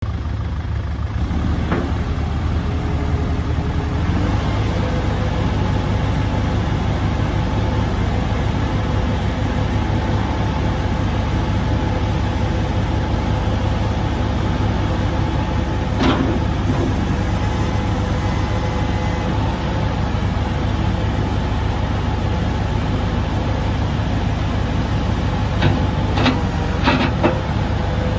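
A 2009 McCormick C105 tractor's 98.6 hp Perkins diesel engine running steadily while the front loader is raised and lowered. Sharp knocks come once partway through and several times near the end.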